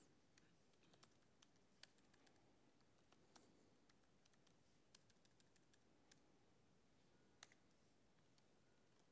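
Faint, irregular keystrokes on a computer keyboard, typed in short runs with pauses between them.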